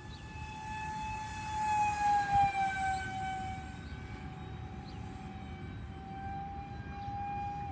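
Electric motor of a converted Air Hogs Titan RC glider whining in flight. The steady high tone grows louder and dips slightly in pitch as the plane passes, about two seconds in, then holds steady.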